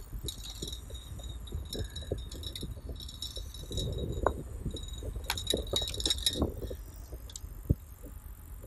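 Steady low wind and road rumble from a road bicycle being ridden, with repeated bursts of metallic jangling and clinking rattles, thickest about four to six seconds in.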